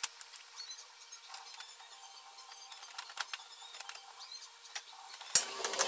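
Plastic engine undercover of a Mazda 5 being pushed back into place by hand: scattered light clicks and taps of plastic against the car's underside, getting louder and more frequent near the end.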